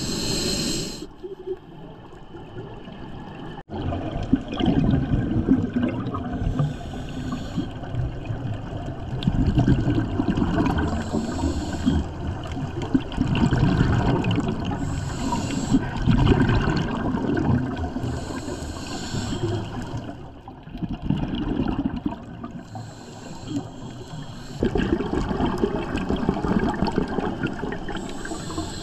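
A scuba diver breathing through a regulator underwater: a short hiss on each inhalation every few seconds, alternating with a louder, low, gurgling rumble of exhaled bubbles.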